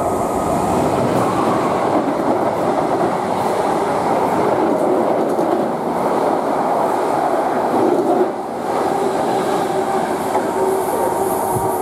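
Class 90-hauled Greater Anglia Mark 3 passenger train passing close by, a steady loud rush and rumble of wheels on the rails with a clickety-clack, easing briefly about eight seconds in.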